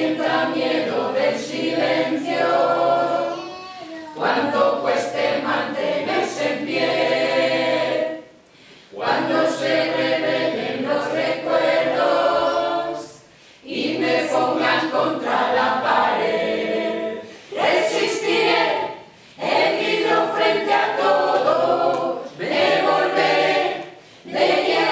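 Small mixed group of men and women singing together a cappella, in sung phrases of a few seconds each, with short breaks for breath between them.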